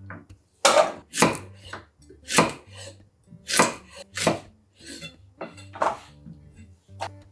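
Chef's knife chopping vegetables, among them a zucchini cut into rounds, on an end-grain wooden cutting board. About a dozen sharp knocks of the blade on the wood come roughly two a second, unevenly spaced.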